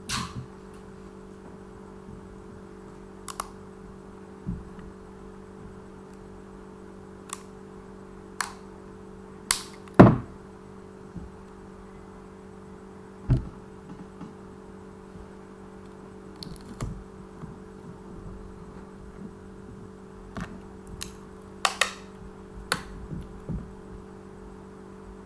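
Scattered taps, clicks and knocks of craft materials being handled, about a dozen over the stretch, the loudest a thump about ten seconds in, over a steady low hum.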